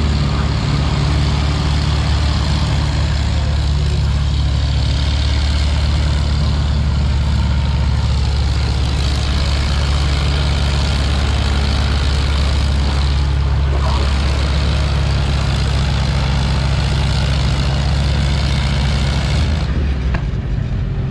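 Engines of a Farmall 300 and a Farmall Super MTA tractor, hitched together as a team, running hard and steady under load while pulling a weight-transfer sled. The sound eases off near the end.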